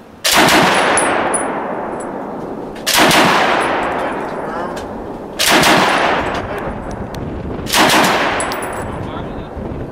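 Browning Automatic Rifle (BAR) fired four times, one shot roughly every two and a half seconds, each report ringing out in a long echo that fades before the next shot.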